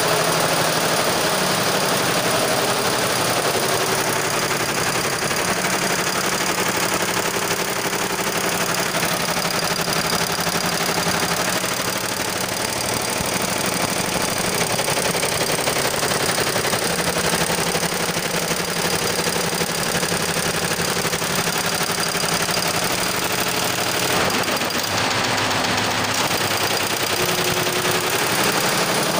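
Multi-head computerized embroidery machine running, its needles stitching at speed: a steady, fast mechanical clatter.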